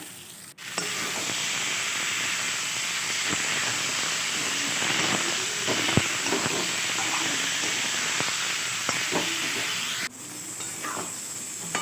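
Hot oil sizzling in a cooking pan as spices and vegetables fry: a steady hiss that starts abruptly just under a second in and cuts off about ten seconds in.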